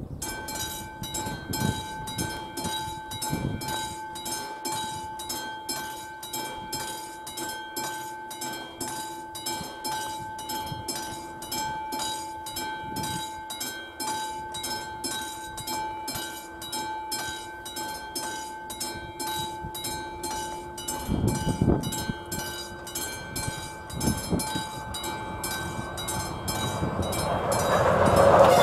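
Level-crossing warning bell (classic bell on AŽD 71 warning lights) starts ringing as the crossing activates, striking steadily about twice a second with a ringing tone. Over the last few seconds the approaching passenger train grows louder.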